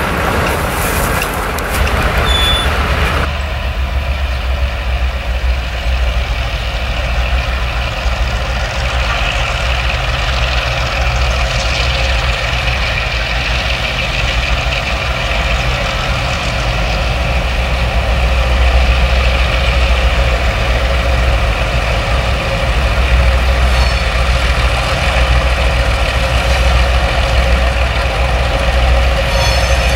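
Diesel locomotives running at close range: first a freight train's locomotive approaching, then, from an abrupt change about three seconds in, a second diesel locomotive's engine with a steady low rumble as it creeps slowly forward.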